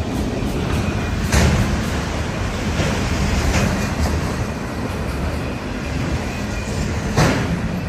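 Freight train of autorack cars rolling past: a steady rumble of steel wheels on rail, with sharp knocks about a second and a half in and again near the end, the last one the loudest.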